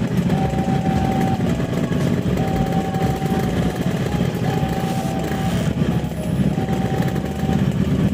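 Passenger train rumbling past at a level crossing. The crossing's warning alarm sounds a steady tone about a second long, repeating roughly every two seconds.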